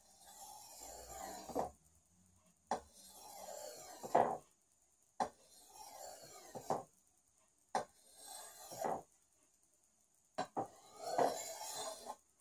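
Steel cleaver blade drawn along a sharpening stone in five slow strokes, about one every two and a half seconds. Each stroke starts with a light tap as the blade meets the stone, then swells into a scraping hiss that ends sharper.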